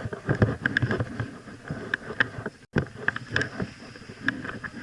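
Footsteps and the rustle and knock of clothing and kit close to the microphone, in an irregular run of soft thuds and clicks. The audio drops out completely for a moment about halfway through.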